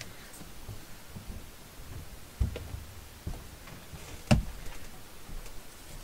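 A few soft knocks and one sharp tap about four seconds in, as craft materials and a glue bottle are handled and set down on a wooden tabletop.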